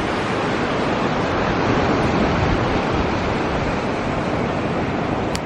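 Ocean surf washing steadily, mixed with wind buffeting the microphone, heard as one even rushing noise; a short click near the end.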